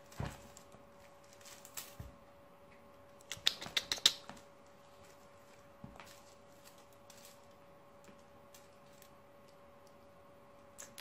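Russian Blue kitten batting at a feather wand toy on a fabric chair cushion: soft knocks, rustling and light clicking, with a quick run of sharp clicks about three and a half seconds in. A faint steady hum runs underneath.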